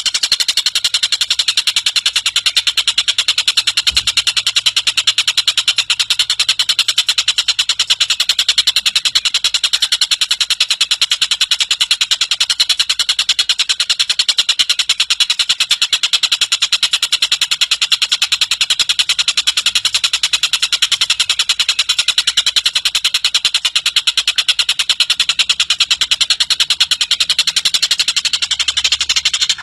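Tengkek buto (Javan kingfisher) calling in a long, unbroken, high-pitched rattling chatter of very fast pulses.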